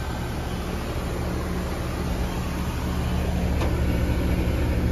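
Rheem heat pump outdoor unit running in cooling, its compressor and condenser fan giving a steady hum, while the system runs on a defective TXV.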